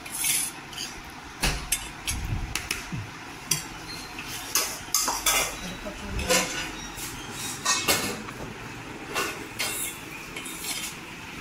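Metal spoons clinking and scraping against stainless-steel bowls and a steel pan as rice gruel and side dishes are served and stirred: a scatter of short, irregular clinks.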